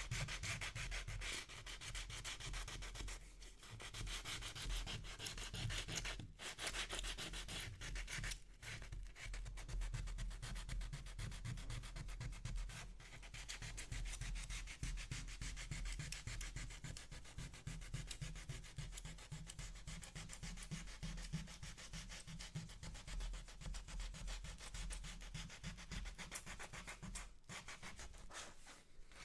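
Sandpaper rubbing back and forth on wood in rapid, even strokes, with a few short breaks.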